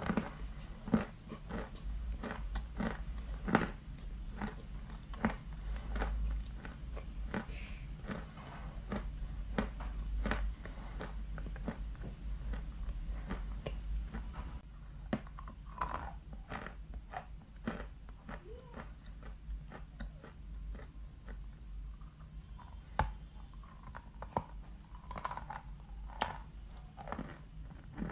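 Close-up chewing and crunching of a lump of white chalk in the mouth: a long run of sharp crunches. They come thick in the first half and turn sparser and a little softer after about halfway.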